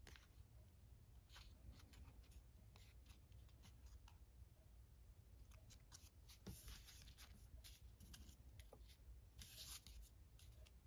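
Faint rustling and crinkling of folded origami paper being handled and turned in the hands, in short scrapes, with the longest ones about six and a half seconds in and again near the end.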